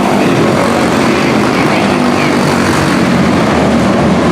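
Quarter midget race cars' small single-cylinder Briggs & Stratton Animal engines running at racing speed. The motors make a loud, continuous drone with faint pitches rising and falling as the cars lap the track.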